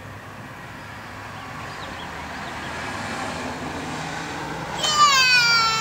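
A vehicle going by on the road, a steady rush of noise swelling over the first few seconds. Near the end, a loud, high voice calls out, its pitch sliding down.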